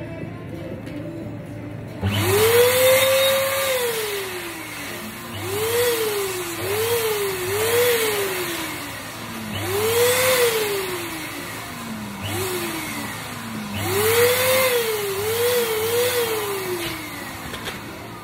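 Electric balloon inflator switched on in short bursts, about nine times. On each burst the motor whine climbs in pitch, then winds down slowly as the motor coasts. It is blowing up a clear bubble balloon.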